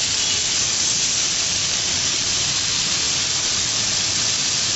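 Skewered chicken malai boti sizzling on a hot grill pan: a steady hiss of frying.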